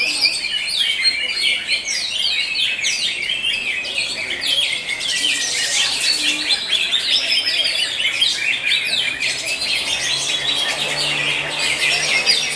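Cucak hijau (greater green leafbird) singing a fast, unbroken stream of high chirps and trills.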